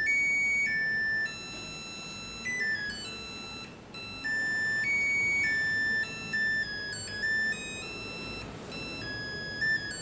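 A Samsung fully automatic top-load washing machine's beeper playing its end-of-cycle tune: a simple melody of high, pure electronic notes stepping up and down. It signals that the wash programme has finished.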